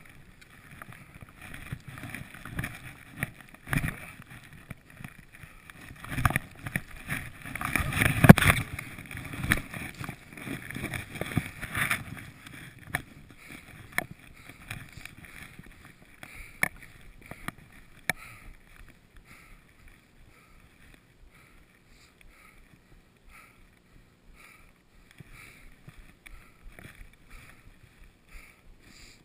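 Skis running through deep powder snow: an irregular rushing and swishing with thumps as snow sprays, loudest about eight seconds in. After about eighteen seconds it dies down to faint rustling as the skier comes to a stop.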